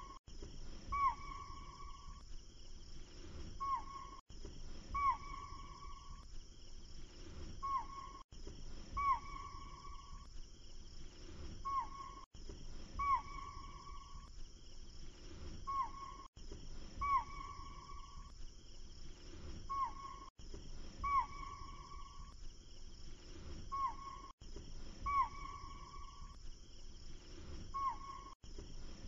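A short nature recording looped over and over: a whistled animal call that starts with a quick downward flick and then holds one note, followed by a shorter call, the pair repeating about every four seconds, with a faint steady high hiss. Each repeat is joined by a brief dropout.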